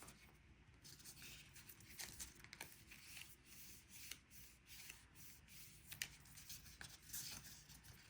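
Faint rustling and light taps of cardstock paper being handled and fitted together, with scattered soft clicks.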